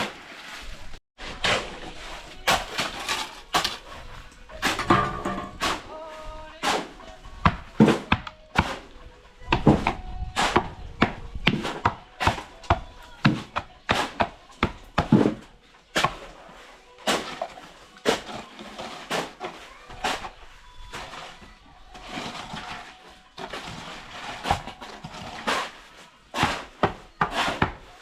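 Irregular knocks and thuds of hand tools at work on the building site, about one or two strikes a second, with faint voices in the background.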